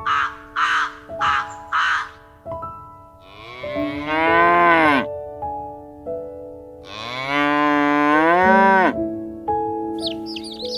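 A raven gives four harsh caws in the first two seconds, then a cow moos twice, two long calls that drop in pitch as they end. Near the end a mass of young chicks starts peeping. Soft piano music plays underneath.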